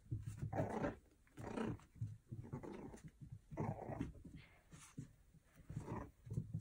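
A Pomeranian puppy growling in several short, irregular bursts while it plays with a toy: play growling.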